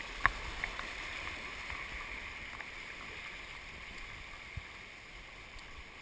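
Creek rapids rushing steadily around a tube rider, quieter in the second half as the water calms. A sharp knock about a quarter second in, with a few fainter clicks later.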